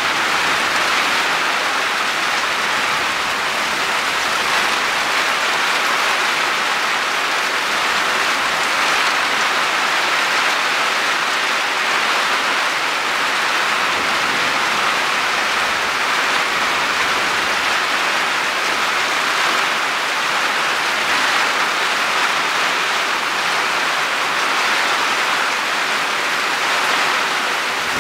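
Heavy downpour: rain falling steadily as one dense, even hiss.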